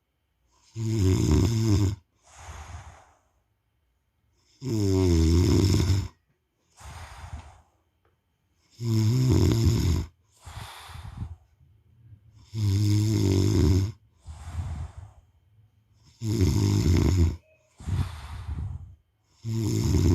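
A man snoring in a slow, regular rhythm. Six loud rasping in-breath snores come about one every four seconds, each followed by a quieter out-breath.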